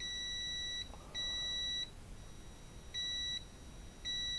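Aneng V01A multimeter's continuity beeper sounding as the test-lead tips are touched together and parted: four steady high-pitched beeps, each under a second long.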